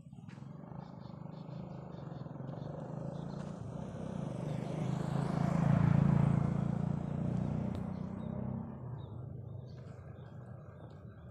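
A motor vehicle drives past, its engine growing slowly louder to a peak about six seconds in, then fading away.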